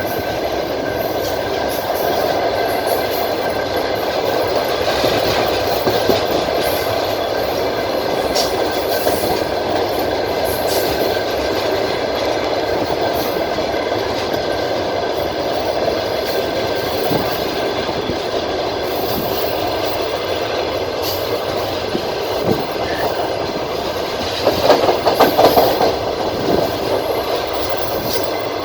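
Passenger train running along the track, heard from inside a carriage: a steady rumble of wheels on rails with scattered clacks at rail joints. About 25 seconds in comes a brief flurry of louder, rapid clacking.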